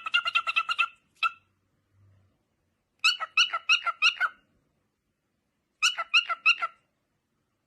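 An animal calling in quick runs of short, repeated pitched notes, with pauses between the runs.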